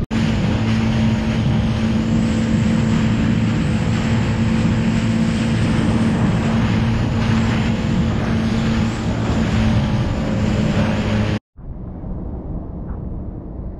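Jet ski engine running steadily at speed, a constant hum under heavy wind and water noise. It cuts off abruptly near the end, leaving only a much quieter background hiss.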